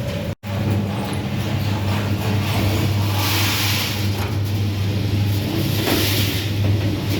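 Rotary pellet dryer running: a steady machine hum with a strong low tone, and a hiss that swells and fades about every two and a half seconds. The sound cuts out for a split second about half a second in.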